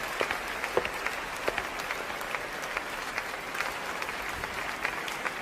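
Large audience clapping steadily: a dense, even patter of many hands.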